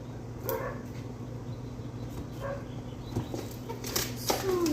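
A pet dog making a few short barks and whimpers, ending with a falling whine near the end, over a steady low hum.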